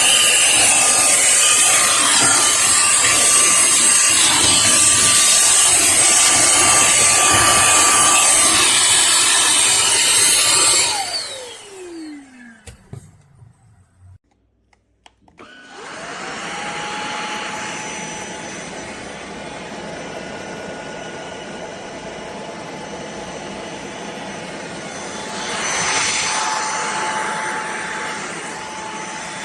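drepre K7 Pro cordless stick vacuum running, then switched off about eleven seconds in, its motor whine falling in pitch as it spins down. After a few quiet seconds it starts again, the whine rising quickly to a steady pitch, and runs more quietly, briefly louder near the end.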